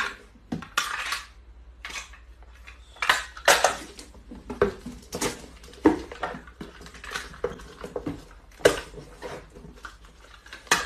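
Packing tape repeatedly pulled off a handheld tape dispenser and torn off in short strips, with cardboard boxes being handled.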